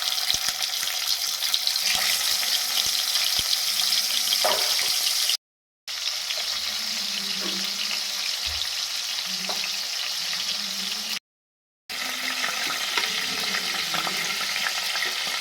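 Rohu fish heads frying in hot mustard oil in a kadai: a steady crackling sizzle, broken twice by short silent gaps.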